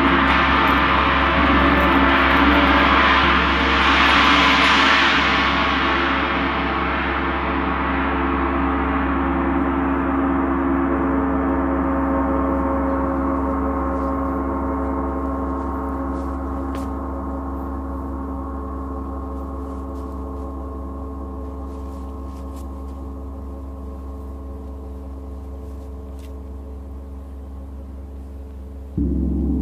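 Gongs ringing together in a dense shimmering wash that swells about four seconds in and then slowly dies away, the high shimmer fading first. A fresh stroke brings the sound back up near the end.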